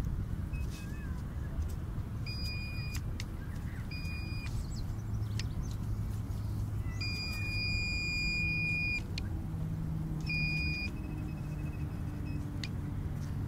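Handheld metal-detecting pinpointer giving its alert tone in several short beeps and one longer tone of about two seconds as it is probed in the hole, signalling metal close to its tip.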